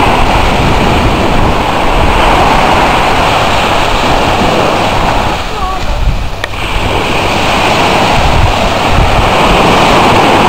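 Small waves breaking and washing up a beach, with wind buffeting the microphone in a steady low rumble. The sound dips briefly a little past the middle.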